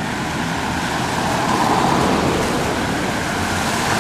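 A car driving out of a road tunnel and past at close range, its tyre and engine noise swelling to a peak about two seconds in.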